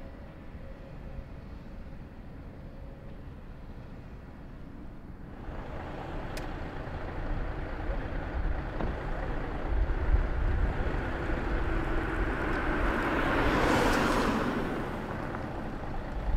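Vehicle noise: a low engine rumble that gets louder about five seconds in, joined by a broad hiss that swells to a peak near the end and then eases off.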